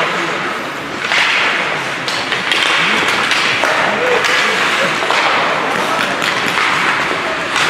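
Youth ice hockey play: skate blades scraping the ice and sticks and puck clacking, with voices calling out.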